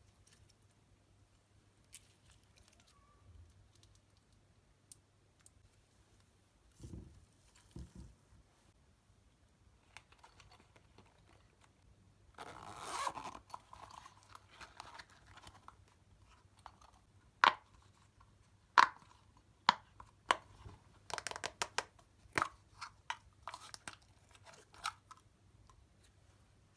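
Slime and its mix-ins being worked by hand: mostly quiet at first with a couple of soft thumps, then a short crackling, crinkling stretch around halfway, followed by a run of sharp pops and clicks from the slime.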